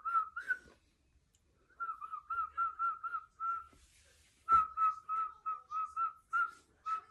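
A woman whistling: one clear note that wavers rapidly up and down, several wobbles a second. After a pause of about a second it comes in two longer phrases, the second starting sharply about halfway through.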